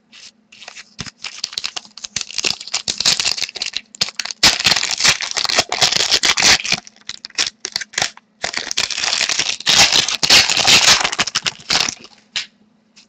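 A trading-card pack wrapper being torn open and crinkled by hand, in two long spells of dense crackling, the second starting about two thirds of the way through. A faint low hum runs underneath.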